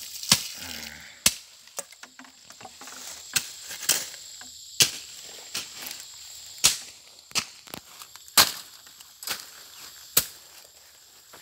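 A series of sharp, irregular clicks, roughly one a second, over a faint steady high-pitched insect drone.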